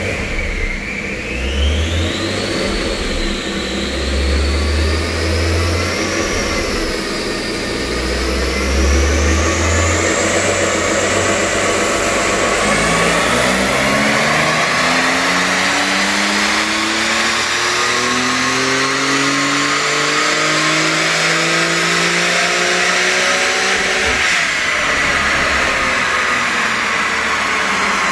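Porsche 992 Carrera's twin-turbo flat-six running on a chassis dyno with cat bypass pipes and an ECU tune. A high whine rises over the first ten seconds, then the engine note climbs steadily in pitch through a full-throttle pull for about twelve seconds. The note breaks off sharply near the end and the revs fall away.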